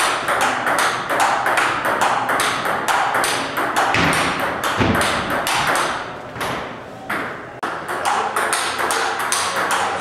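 Table tennis ball clicking rapidly off paddles and table in a fast rally, about four or five sharp clicks a second. The clicks thin out briefly about two-thirds of the way through, then resume.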